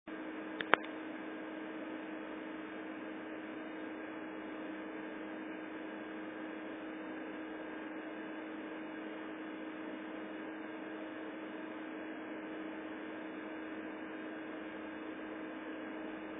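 Steady electrical hum and hiss, with two sharp clicks a little under a second in.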